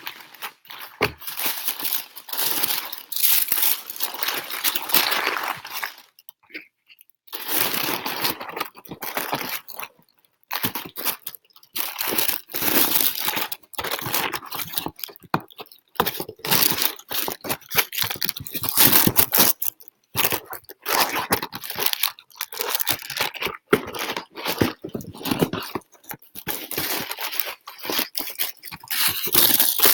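Close, irregular rustling and crinkling of something being handled and rearranged, in uneven bursts with short pauses.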